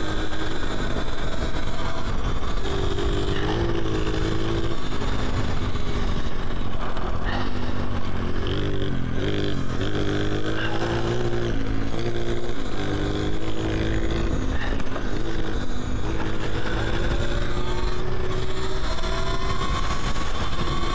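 Talaria Sting R MX4 electric dirt bike motor whining while riding, its pitch rising and falling again and again with the throttle, over a steady low rumble.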